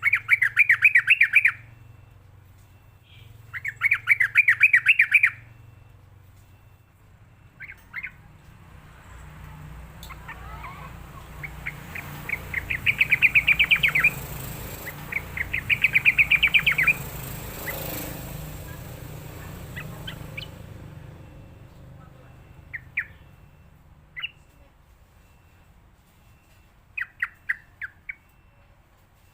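Yellow-vented bulbul calling: four bubbly chattering phrases of quick repeated notes, each about a second and a half, with short single chips between them and near the end. A background hiss swells and fades through the middle.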